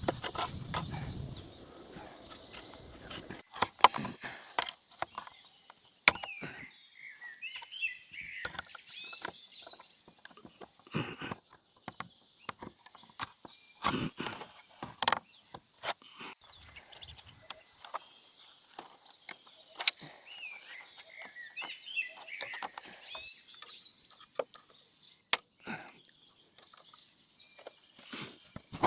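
Irregular sharp knocks and clicks, scattered through the whole stretch, with small birds chirping between them.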